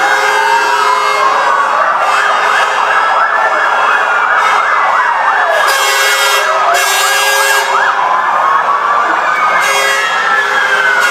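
Several fire-truck sirens sounding at once, their slow wails rising and falling across one another. One switches to a fast yelp from about two to seven seconds in.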